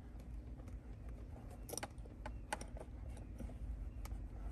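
Scattered light clicks and taps as a carbon fiber trim piece is pressed by hand, through a microfiber towel, onto a 2021 Honda Ridgeline's center console so its adhesive grabs. A faint low hum runs underneath.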